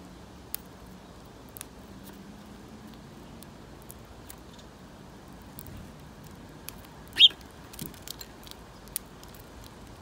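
House sparrows pecking at crumbs on a truck bed close to the microphone: scattered sharp taps, with one short, loud, high chirp about seven seconds in and a few more taps after it.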